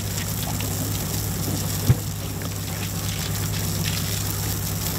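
Deck washdown hose spraying a jet of water across a fibreglass boat deck, over a steady low hum. A short sharp knock sounds about two seconds in.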